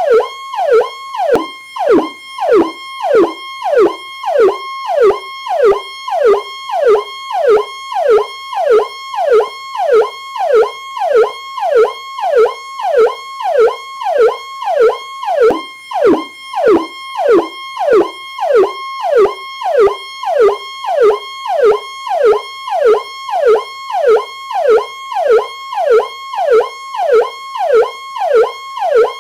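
Police siren in the Powercall tone: a fast, evenly repeating downward-sweeping wail, about three sweeps every two seconds, over a steady high tone.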